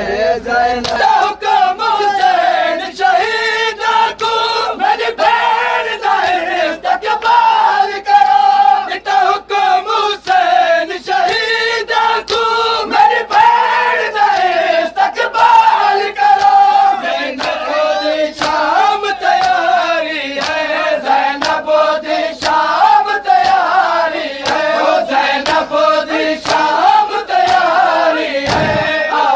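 A group of men chanting a noha together in unison, with a steady beat of sharp hand slaps of matam (chest-beating) keeping time.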